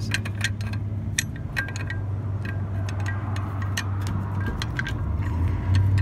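Steel lug wrench clinking and ticking irregularly on a wheel's lug nut as it is worked to break the nut loose, over a steady low vehicle hum.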